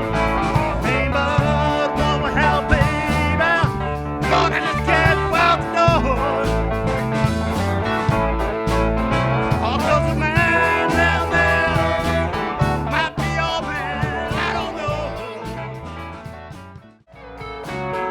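A band playing a bluesy country-rock tune: a bending lead line over bass and a steady drum beat. The music fades out near the end, and another song starts just after.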